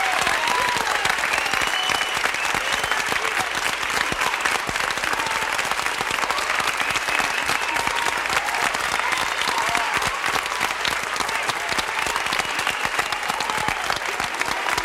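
Medium-sized outdoor crowd applauding steadily, with dense clapping and scattered yells and whoops over it.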